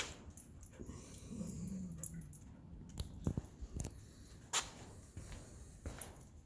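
A dog whimpering once, a short low whine that falls in pitch, amid a few scattered knocks and clicks.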